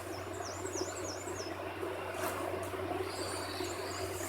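A small bird singing: a quick run of high, repeated chirping notes, then another run of high notes starting about three seconds in, over steady background noise.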